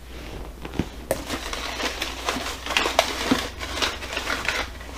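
Packing paper crinkling and a cardboard box rustling as hands dig through the box, in a string of irregular crackles and scrapes.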